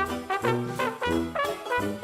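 Upbeat background music led by brass, trombone and trumpet, in a jazzy swing style with a steady beat.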